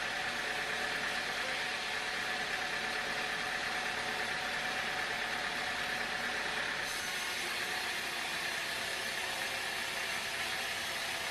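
Sawmill machinery running steadily, a constant mechanical hum with a wide hiss over it; the sound changes abruptly about seven seconds in.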